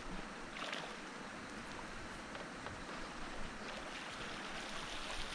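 Water lapping and splashing softly against a boat hull, with a few brief brighter splashes about half a second in and again near the end.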